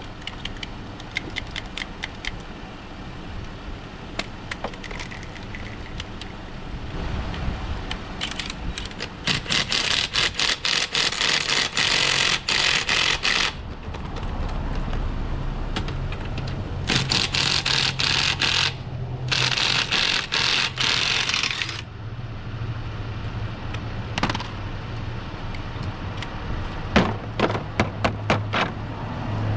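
Ryobi cordless impact wrench with a socket hammering at a stuck lug nut in bursts of rapid clicking, a few seconds each: a long burst about ten seconds in, then two shorter ones after a short pause.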